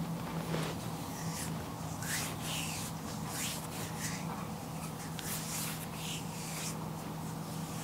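Hands rubbing and stroking the skin of a foot in repeated short swishing strokes, over a steady low hum.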